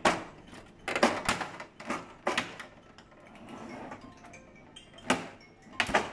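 Sharp, irregular plastic clicks and knocks as the side cover of a Fuji Xerox DocuPrint CM225 printer is worked loose from its snap clips by hand.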